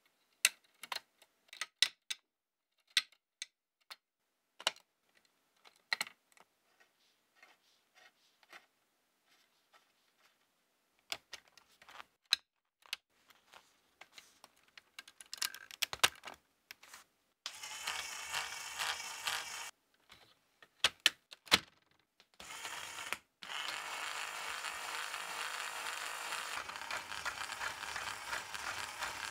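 Lego Technic plastic parts clicking and snapping as they are handled and pushed together, as scattered sharp clicks. About halfway through, a small Lego electric motor starts whirring through a worm gear and gear train, in two short runs and then steadily to the end, raising the bascule bridge leaves.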